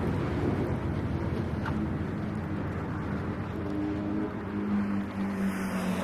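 A vehicle engine running close by: a low rumble with a steady hum that steps down in pitch about two thirds of the way through.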